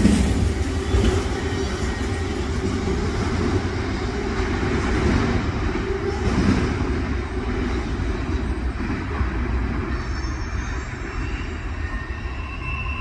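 Freight train cars rolling past: a steady rumble of steel wheels on the rails that eases slightly. High thin wheel squeal comes in about ten seconds in.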